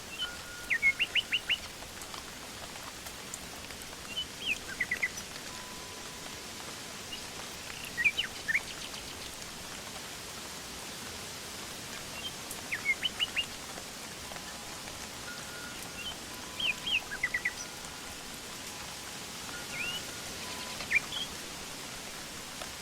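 A songbird calling in short bursts of quick, sweeping chirps, a phrase about every four seconds, over a steady hiss of light rain.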